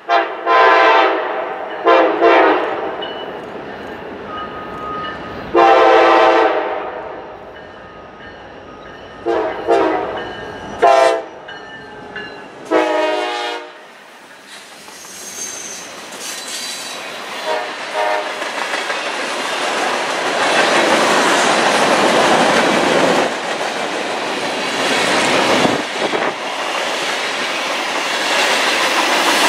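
Freight locomotive's multi-tone air horn sounding six blasts, some long and some short, over the first thirteen seconds or so as the train approaches. After that the freight cars roll past with steady, growing wheel clatter and rail noise.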